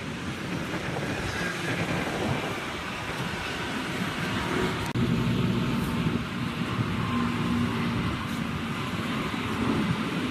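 Engine of a Caterpillar off-road dump truck running steadily, with a low hum that grows stronger about halfway through.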